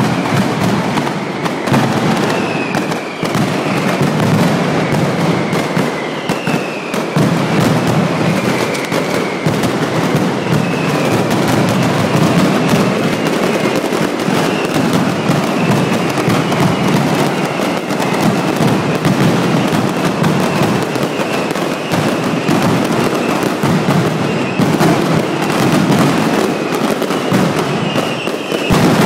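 Mascletà firecrackers (masclets) going off in a rapid, unbroken string of loud bangs. Short high falling whistles are heard over them now and then.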